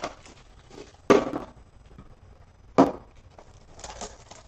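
Cellophane wrapper being peeled and torn off a pack of Ultra Pro super thick toploaders: light crinkling with two sharp crackles about a second and a half apart.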